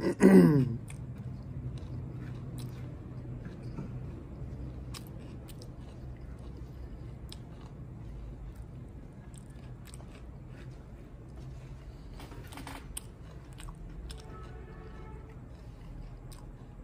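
Close-miked chewing and wet mouth clicks of a person eating spicy liver curry with flatbread, opening with a short, loud vocal sound whose pitch falls.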